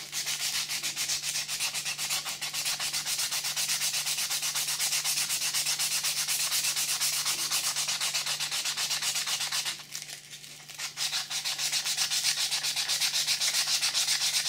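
Sandpaper rubbed by hand over a wooden knife handle in quick, even back-and-forth strokes, shaping it toward its final form. There is a brief pause about ten seconds in.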